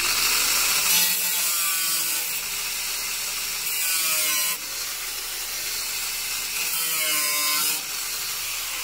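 Angle grinder with a cut-off disc slicing through the car's sheet-steel rear back plate, the high hiss of the cut swelling and easing several times as the disc bites in and lets off.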